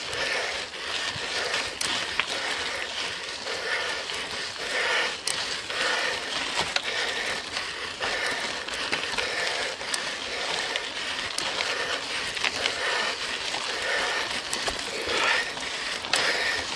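Mountain bike climbing a steep hill under hard pedalling: a steady rough noise of tyres and drivetrain, with scattered clicks and swells every second or two.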